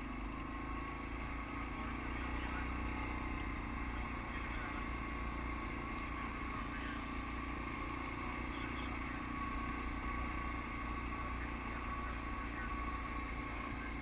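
ATV engine running steadily as the machine drives up a dirt trail.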